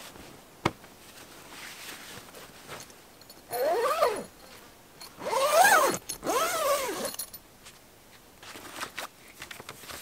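Zip on a canvas swag pulled in three strokes, each rising then falling in pitch. A sharp click comes just before them.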